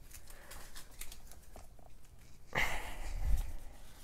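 Paper leaflets and packaging being handled: light scattered rustles and taps, then a louder rustle with a dull bump about two and a half seconds in.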